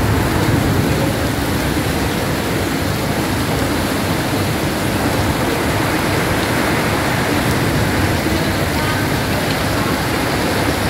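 Heavy rain falling steadily, a continuous even hiss of rain.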